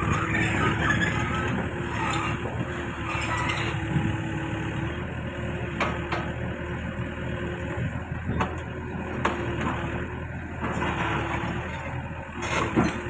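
Backhoe's diesel engine running steadily, with a few sharp metallic knocks, the loudest near the end.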